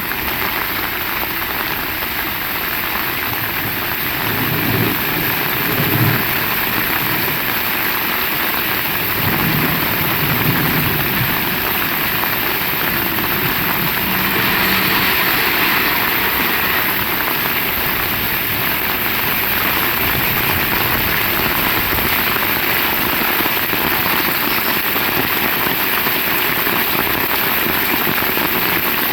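Heavy rain falling steadily, with low rumbles a few seconds in and again about ten seconds in.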